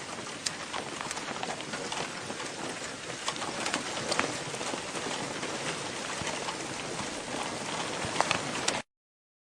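Steady rain falling on a hard surface, with many sharp close drop impacts over a dense hiss; it cuts off suddenly near the end.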